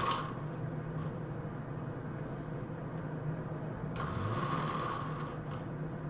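A person snoring heavily: a loud snore trails off at the start, and another loud snore comes about four seconds in and lasts over a second.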